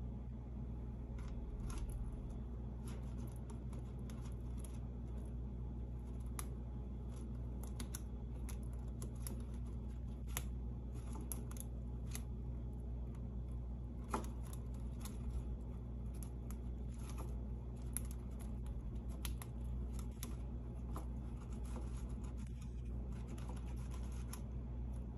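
Chinchilla gnawing and shredding a rattan-ball and apple-wood-stick chew toy: irregular quick crunches and snips, with one sharper crack about halfway through, over a steady low hum.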